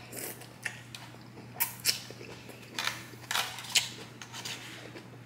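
Close-up eating sounds from a mukbang: a string of short, sharp mouth smacks and clicks while chewing, the loudest between about one and a half and four seconds in, over a low steady hum.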